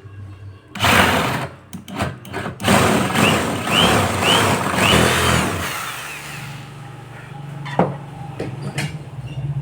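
A power tool running in short bursts, then one longer run of about three seconds. After that comes a steady low hum with two sharp knocks.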